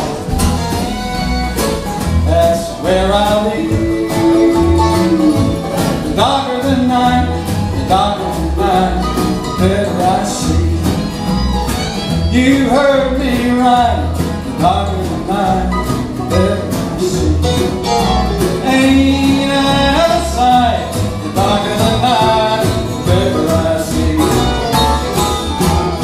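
Acoustic country band playing an instrumental break, with a fiddle carrying a bending melody over strummed acoustic guitar, upright bass on a steady beat and hand drums.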